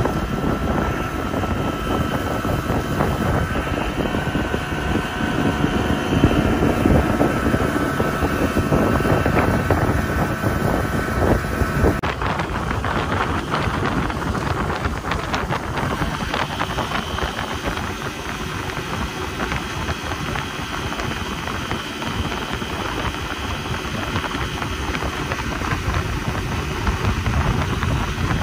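A boat's motor running steadily under way, with wind rumbling on the microphone. The faint whine of the motor drops away abruptly about twelve seconds in.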